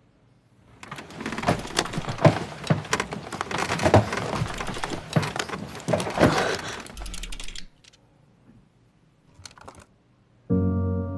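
A dense run of rustling, clicking and knocking for about seven seconds: straps and fabric of a torso brace and bedding jostled as someone strains against them. Near the end a low, sustained ringing musical tone starts.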